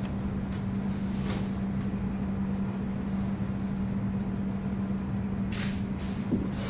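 Steady low hum over a low rumble, the studio's background noise. Two brief soft brushing sounds come through, about a second in and again near the end.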